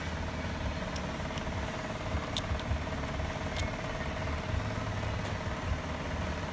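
Steady low hum of a running machine, with a faint steady tone above it, and a few light clicks of hose fittings and small parts being handled.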